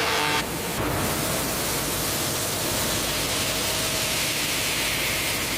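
A steady, even hiss of noise, with a brief shift about half a second in.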